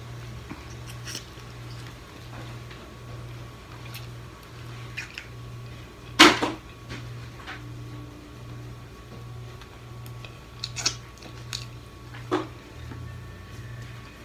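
Eating steamed blue crab claws: a few sharp clicks and cracks of shell being picked and bitten, the loudest about six seconds in. Under them runs a steady low hum that pulses a little faster than once a second.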